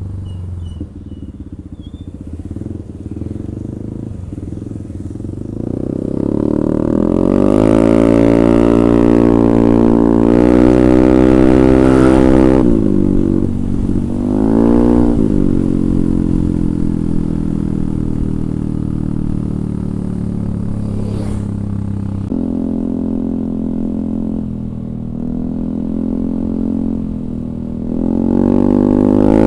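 Yamaha Aerox 155 scooter's single-cylinder engine running through a DSM Cobra aftermarket racing exhaust with a 38 mm inlet. It idles, is revved up and held, drops and is blipped back up briefly partway through, eases lower, then rises again near the end.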